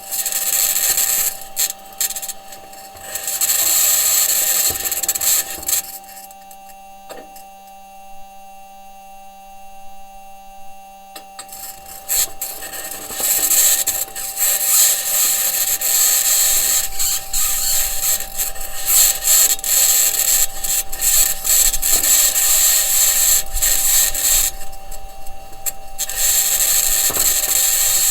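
Perseverance Mars rover driving, heard through its entry, descent and landing microphone: the wheels and suspension working over the surface under a loud, high-pitched scratching noise. That noise may be electromagnetic interference from one of the rover's electronics boxes, or the mobility system grinding against the ground. The scratching drops away for about five seconds around a quarter of the way in, leaving a faint steady hum, and dips again briefly near the end.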